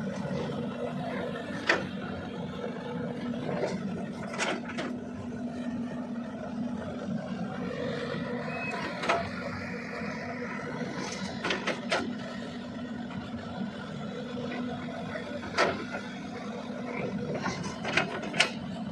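CAT 320DL long-arm excavator's diesel engine running steadily under load, with short sharp metallic clanks from the bucket and arm scattered through, about a dozen in all.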